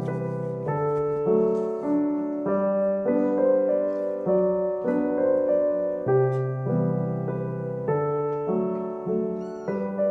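Background piano music with a gentle melody, and a kitten mewing faintly a couple of times near the end.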